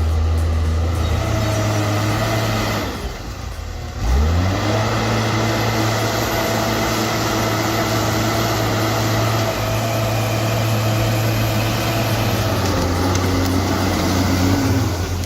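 Forestry skidder's engine running under load. It drops briefly about three seconds in, then revs back up and runs steadily.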